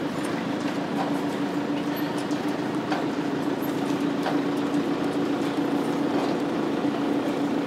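Steady rushing noise with a constant low hum and scattered faint creaks and clicks, from a rail depot's overhead wire gantries and parked trains shaking in a strong earthquake.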